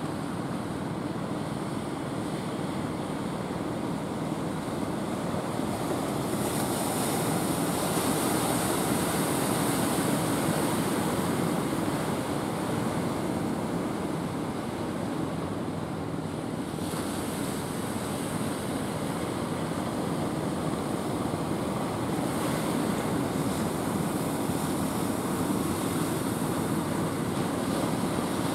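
Ocean surf rolling in and breaking steadily, with wind on the microphone. The engine of a wooden outrigger fishing boat coming in through the surf runs underneath.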